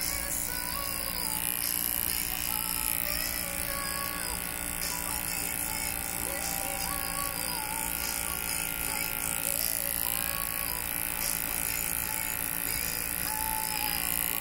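Cordless electric hair clippers running with a steady buzz as the blade cuts short hair at the fade around the ear and neckline.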